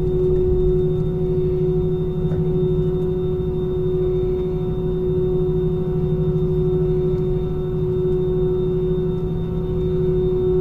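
Jet engines of an Airbus A320-family airliner heard from inside the cabin, running at low taxi thrust: a steady hum with a fainter high whine over a low rumble, held level without spooling up.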